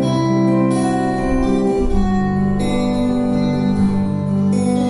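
Two acoustic guitars playing an instrumental duet live, a melody ringing over chords, with a fresh strummed chord about every two seconds.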